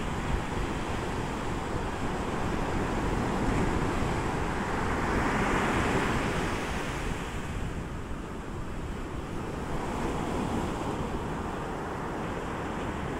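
Sea surf breaking and washing up a beach, with wind buffeting the microphone. The wash swells louder about five seconds in as a wave breaks, then eases.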